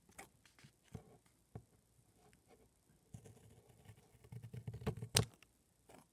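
Small scissors snipping a post-it note, a few quiet scattered snips and paper rustling, then a denser run of snips ending in the loudest snip about five seconds in.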